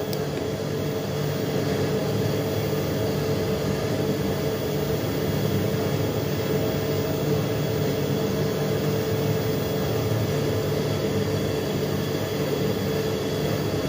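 Electric water pump motor running with a steady hum and a constant mid-pitched tone; it is running empty, without water, which makes it noisy.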